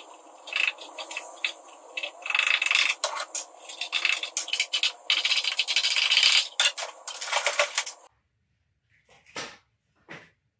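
Crinkly plastic bag rustling and crackling with many small clicks as baking powder is shaken from it into the open cells of a lead-acid car battery. It cuts off abruptly about eight seconds in, followed by two faint short rustles.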